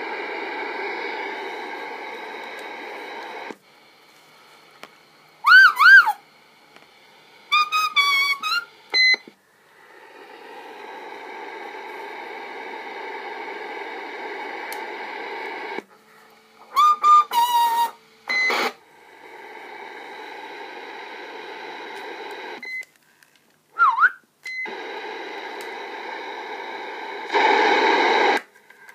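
Superstar 3900 CB radio's speaker giving a steady rush of received static that cuts off and comes back several times, broken by short warbling electronic beeps and chirps.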